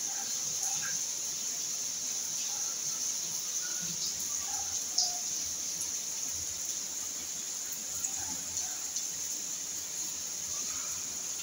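Outdoor ambience: a steady high-pitched hiss with faint, scattered bird chirps.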